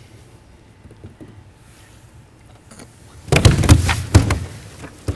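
Quiet, then about three seconds in a loud, rapid run of knocks and thuds that lasts over a second and fades away.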